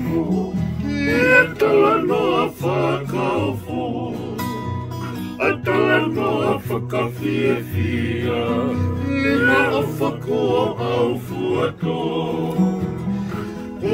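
Male singing with a wavering voice, accompanied by strummed acoustic guitar and ukulele.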